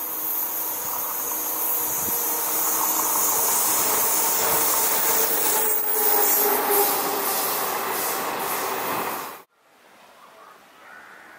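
Vande Bharat Express electric train set approaching along the track, a steady rushing of wheels on rail with a lot of high-pitched hiss, growing louder. It cuts off suddenly near the end, leaving only a quiet background.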